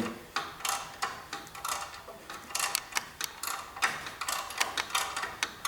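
Ratcheting wrench clicking in short irregular runs, several clicks a second, as it backs a nut off a threaded rod holding down a compressed front coil spring.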